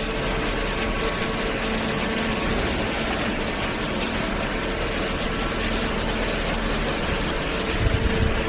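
Machinery running steadily, with a faint hum through it and a few low rumbles and knocks near the end.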